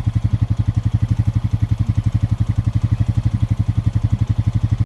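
Four-wheeler (ATV) engine running steadily at low speed, an even chugging of about a dozen pulses a second that neither rises nor falls.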